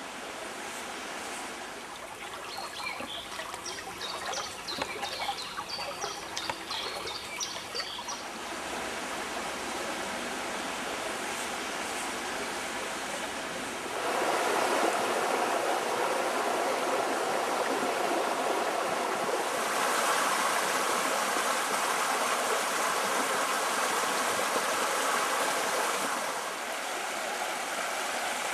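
Small forest river, the Szum, rushing over shallow riffles and a low step, a steady hiss of running water that turns louder and fuller about halfway through. A bird sings faintly for a few seconds near the start.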